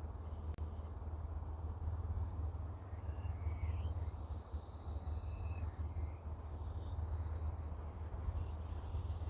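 Birds chirping outdoors: a few short calls and a quick trill in the middle, over a steady low rumble and rustling hiss.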